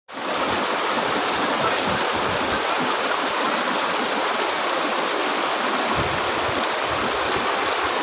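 Clear, shallow rocky river babbling and splashing as it rushes over and between boulders in small rapids: a steady hiss of running water.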